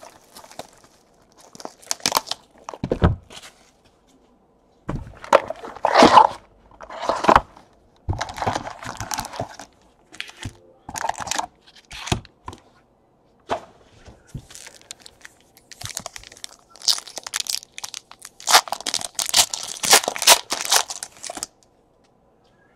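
Foil trading-card packs being torn open and their wrappers crinkled, in a string of short rips and crinkles with the longest stretch near the end. There is a low thump about three seconds in.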